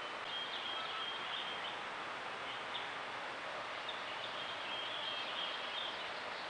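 Steady outdoor background hiss with distant birds singing short, high, thin notes, several times a second in loose runs.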